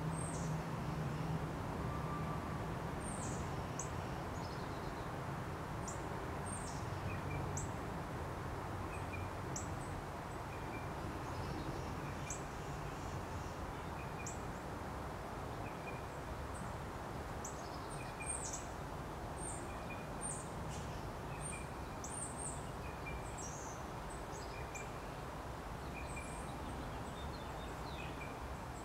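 Small birds chirping: short, high, falling chirps, scattered irregularly and sometimes several in quick succession, over a steady background noise with a low hum.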